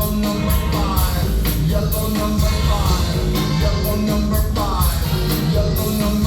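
Live rock band playing loud through a concert PA: a steady drum beat with regular cymbal hits over heavy bass, and a falling gliding figure that repeats about every second and a half. No words are sung.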